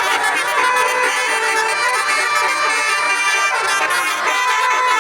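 Several Basuri telolet bus air horns sounding at once, overlapping multi-tone tunes in a loud, continuous horn battle.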